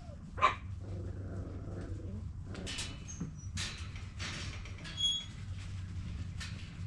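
Alaskan Klee Kai puppies playing: one sharp yip about half a second in, the loudest sound, then a short high-pitched squeal near five seconds, with brief scuffling noises between. A steady low hum runs underneath.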